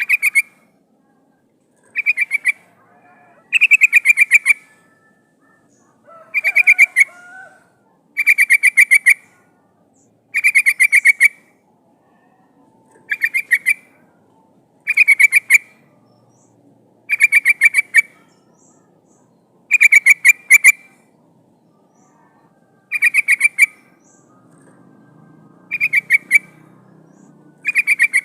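Yellow-vented bulbul (trucukan) giving short, rapid bubbling chatter phrases, repeated about every two seconds, a dozen or so times. This is a female's call to males, the kind used to lure wild trucukan.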